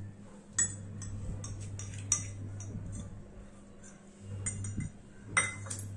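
Stainless steel cup and bowl clinking as yogurt is emptied onto marinating chicken: scattered light metallic clinks and taps, with a sharper pair near the end, over a steady low hum.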